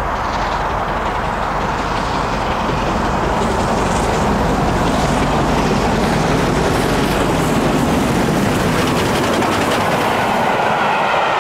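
Steam locomotive 48151, an LMS Stanier 8F 2-8-0, approaching under steam and passing close by, growing louder. Its train of coaches rolls past near the end.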